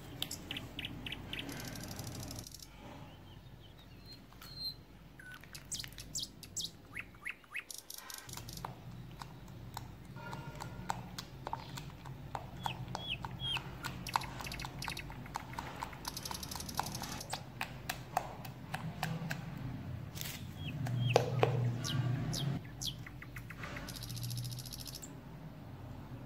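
A metal potato masher clinking and squelching against a glass bowl as strawberries are mashed, then a silicone spatula stirring a milky mixture in a glass bowl. Scattered sharp clicks and short high chirps run through it, and the stirring is loudest a little past the middle.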